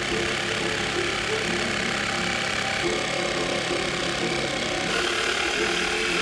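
DeWalt cordless jigsaw running steadily as its blade cuts through a thick teak board.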